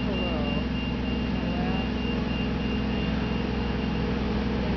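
A large engine running steadily, a low unbroken hum, with a thin high whine over it that stops near the end.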